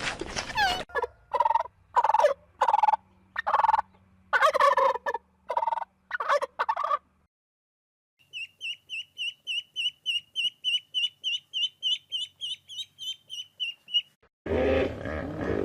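A turkey giving a series of short gobbling calls, then, after a brief pause, chicks peeping in a fast, high, even run of about four or five peeps a second.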